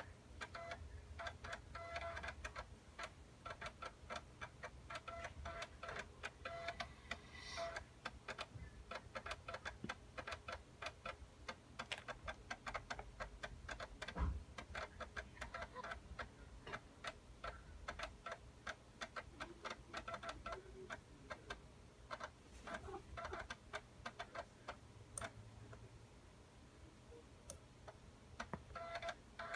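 PowerBook 180's internal hard drive clicking and ticking rapidly and irregularly as its heads seek while the Mac loads its system software at startup.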